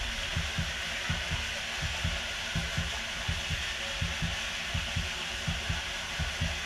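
Steady rush of running water with soft, irregular low thumps about three a second, heard from inside the closed launch capsule of a trapdoor water slide.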